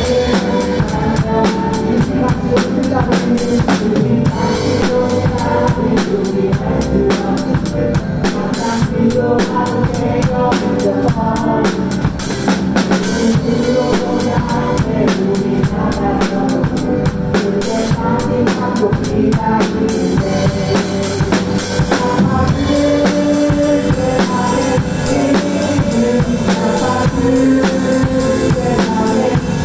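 Drum kit played along to a worship-song backing track with a steady beat of bass drum, snare and busy hi-hat. About two-thirds of the way through, the sharp hi-hat ticks give way to a smoother cymbal wash.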